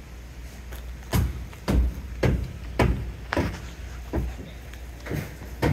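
Footsteps of a person walking at an even pace, about two steps a second, over a low steady rumble.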